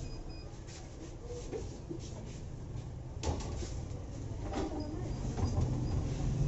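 Background noise in a vegetable market: a steady low rumble with scattered light clatters and one sharp knock about three seconds in.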